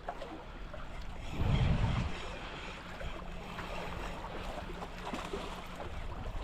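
Wind buffeting the microphone, with one stronger gust about a second and a half in, over a faint wash of sea water.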